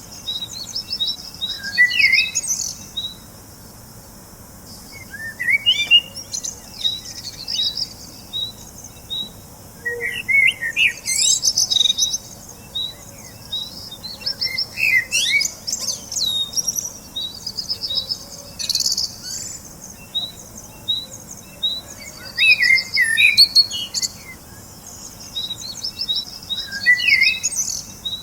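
Birds singing: phrases of quick chirps and short trilled runs of high notes that recur every few seconds over a faint steady hiss.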